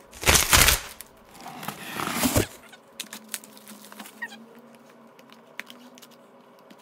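Plastic shrink wrap crinkling with faint scattered crackles as it is peeled off a trading-card booster box. A loud, noisy burst comes in the first second and another around two seconds in.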